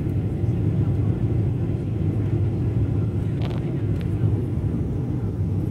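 Airliner cabin noise in flight: a steady low roar of the jet engines and rushing air, heard from inside the cabin. A faint short click comes about four seconds in.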